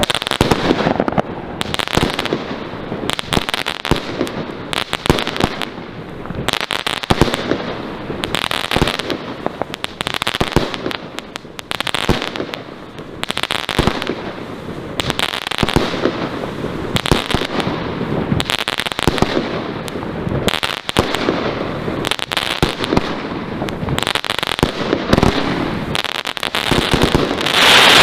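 A Funke Chrys Rain Variations 20-shot, 30 mm firework battery firing: a rapid run of launches and bursts of gold-rain bouquets with crackling tips, with dense crackle between the shots. It builds to its loudest volley just before the end.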